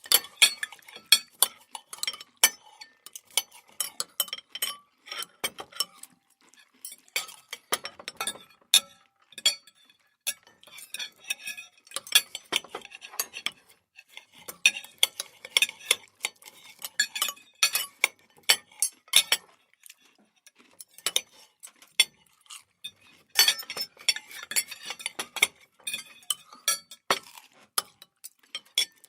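Cutlery clinking and scraping against plates and dishes during a meal. The clinks come in irregular clusters, with short pauses between them.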